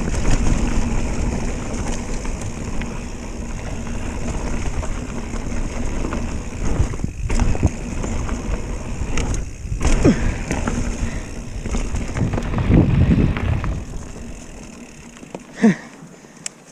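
Mountain bike riding over a dirt trail: tyre noise with a steady low rumble and scattered knocks over bumps. It quietens near the end as the low rumble drops away.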